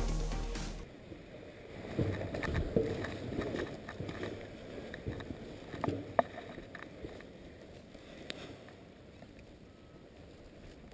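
Background music ending about a second in, then soft rustling of fabric and straps with scattered clicks and knocks as gloved hands handle a paraglider harness and risers close to the microphone.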